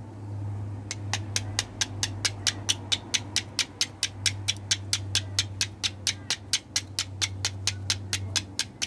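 Carbon steel fire striker struck against flint again and again, throwing sparks onto char cloth to catch an ember. The strikes come as sharp, scraping clicks in a fast, even rhythm of about four to five a second, starting about a second in and stopping near the end.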